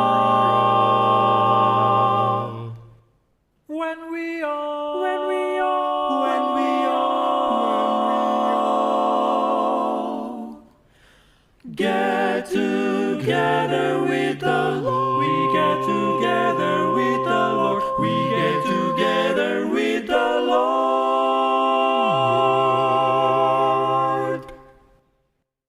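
An a cappella vocal quartet singing the closing phrases of a gospel song in close four-part harmony, with no instruments. The singers hold long chords with two short breaks, then sing a moving passage into a final sustained chord that cuts off cleanly near the end.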